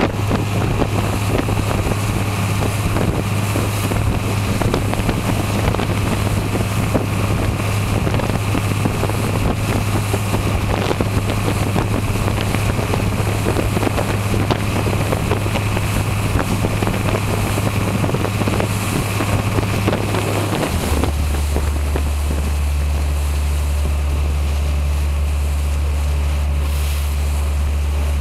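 Small harbour ferry's engine droning steadily, with water rushing along the hull and wind buffeting the microphone. About three-quarters of the way through, the engine note drops to a lower pitch and the rushing water quietens as the boat slows.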